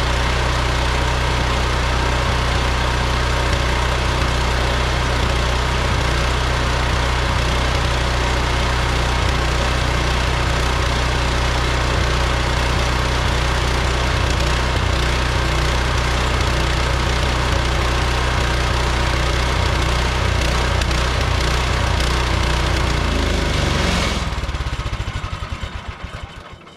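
Portable band sawmill's gasoline engine running steadily, then shutting off about 24 seconds in and spinning down to a stop.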